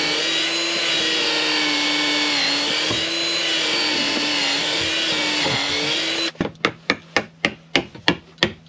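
A power drill running steadily for about six seconds as bolts are driven home through a freshly epoxied wooden frame joint, its motor pitch wavering slightly under load. It then stops abruptly and a run of sharp, regular clicks follows, about three a second.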